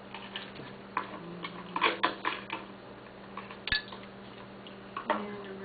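Small hard objects being handled, clicking and clinking: a run of light irregular taps, with one sharper metallic click that rings briefly a little past the middle. A low steady hum sits underneath.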